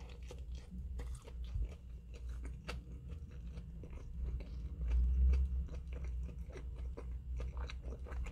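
Close-up chewing and crunching of a mouthful of crumbed chicken burger: many small irregular crisp clicks, with a brief low rumble about five seconds in.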